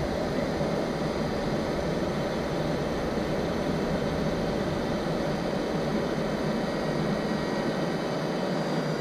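Cordless drill running continuously at a steady speed: an even motor whir with a faint high whine.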